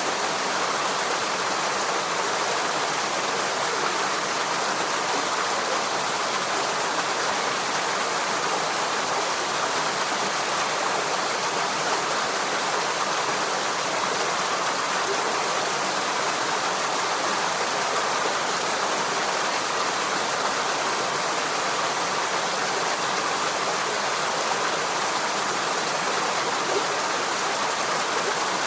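Steady rush of flowing water from a stream.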